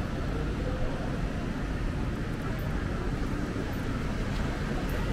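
Street ambience in a pedestrian shopping street: a steady, even low rumble with no single sound standing out.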